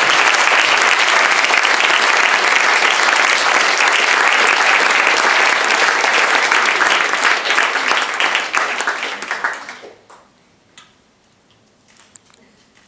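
Audience applauding, the clapping fading out about ten seconds in and leaving a few faint clicks.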